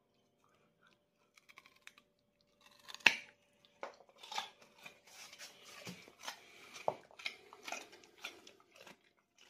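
A husky biting into a raw carrot with one sharp crack about three seconds in, then crunching and chewing it in a run of irregular crunches.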